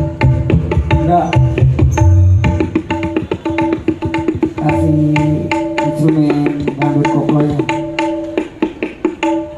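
Dangdut gendang (Indonesian hand drums) played in a fast, dense pattern during a sound check, with deep bass strokes in the first couple of seconds and a ringing, tuned higher head.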